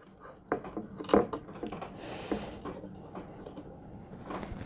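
Light, scattered clicks and plastic handling as small protective caps are pulled off the antenna connectors of a plastic drone remote controller, with a brief hiss about two seconds in.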